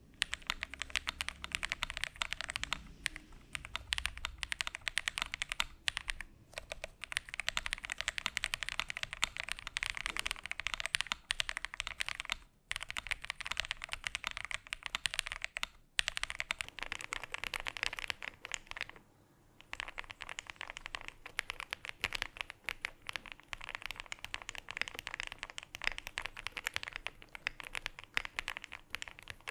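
Mechanical keyboard typing sound test: continuous rapid keystrokes on an Itou65 aluminium-case gasket-mount keyboard with FR4 plate and lubed KTT Kang linear switches. About halfway through, after a short break, the typing carries on on a Zoom65 keyboard for comparison.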